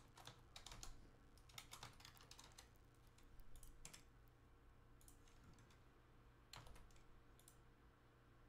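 Faint computer keyboard typing: quick clusters of keystrokes in the first couple of seconds, then a few scattered clicks.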